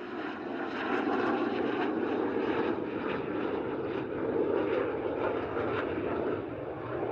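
Jet noise of a Canadair NF-5 fighter's twin General Electric J85 turbojets as it flies past, a steady dense roar that swells about a second in and stays loud.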